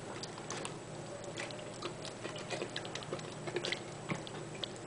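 Hands rubbing a wet spice marinade over the skin of a raw whole chicken: faint, irregular small clicks and squishes.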